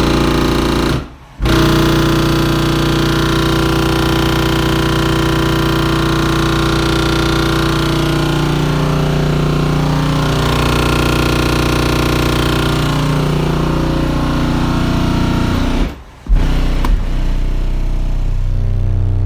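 Two 12-inch subwoofers playing a low bass test tone at high power, with a heavy buzzing rattle over the bass. The tone cuts out briefly about a second in and again near sixteen seconds, and its pitch changes just before the end.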